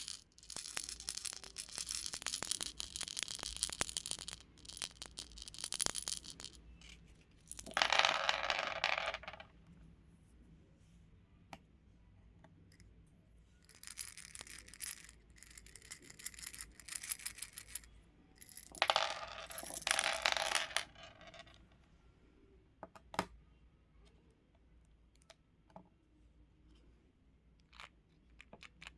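Small beads rattling and clattering in four bursts of a few seconds each, with scattered single clicks in between.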